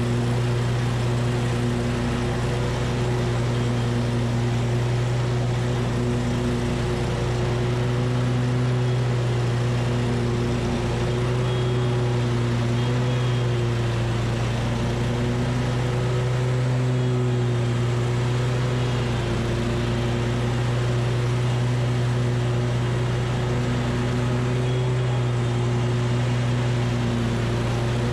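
Hustler Super S stand-on mower's V-twin engine running steadily at mowing speed with the blades engaged, a constant hum with only slight variations as it cuts grass.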